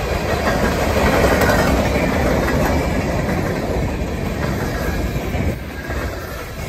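Freight train cars rolling past: steel wheels rumbling and clattering over the rail joints as tank cars and boxcars go by, easing off a little near the end.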